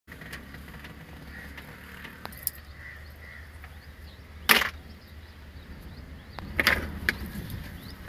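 A few sharp knocks and clicks over a faint low rumble, the loudest about halfway through and another a couple of seconds later, as a key ring is handled near the dashboard.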